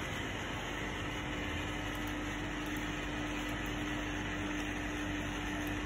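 Steady fan-like hum from running equipment, with one constant low tone held throughout.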